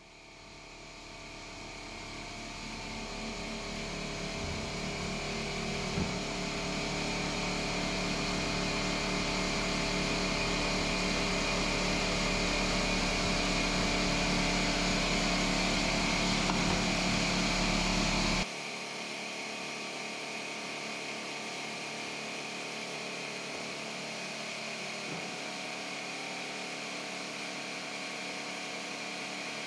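A machine hum with several fixed tones. It swells over the first few seconds, then drops abruptly to a quieter, thinner hum about two-thirds of the way through.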